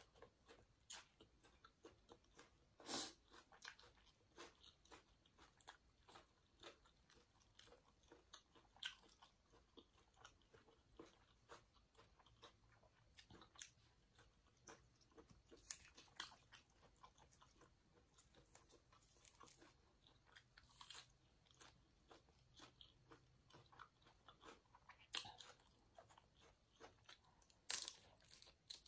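Close-miked chewing of a Thai glass noodle salad with shrimp, squid and pork roll, eaten by hand: quiet, irregular wet mouth clicks and crunches. A few louder crunchy bites come about three seconds in and twice near the end.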